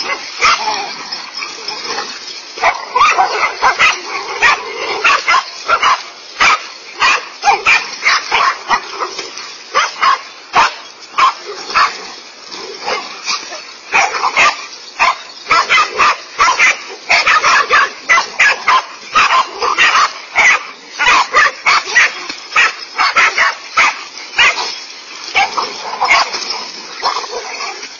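A pack of dogs barking fast and without a break, short sharp barks crowding over one another as they mob and bite at a large snake.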